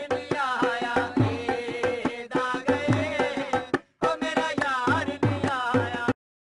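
Music led by tabla: rhythmic hand-drum strokes with the bass drum's pitch bending under them. It drops out for a moment near the middle and cuts off abruptly about six seconds in.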